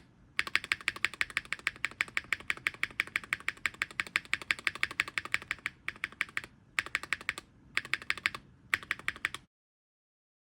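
A mechanical keyboard spacebar on a lubed Epomaker Wisteria Linear switch being pressed and released rapidly, clacking about five times a second. It goes in runs broken by short pauses near the end, then stops abruptly.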